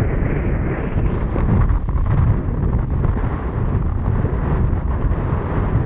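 Loud wind buffeting the camera microphone of a small boat running fast across choppy water.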